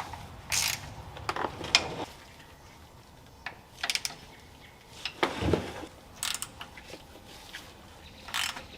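Socket ratchet wrench clicking in short bursts as fasteners are turned.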